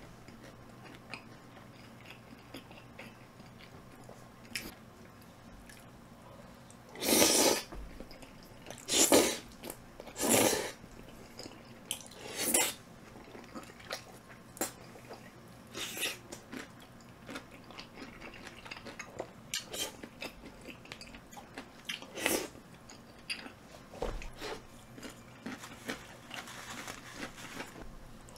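Close-miked eating: chewing and biting on spicy tteokbokki mixed with fried chicken, with a string of short, loud mouth noises every second or few, starting about seven seconds in.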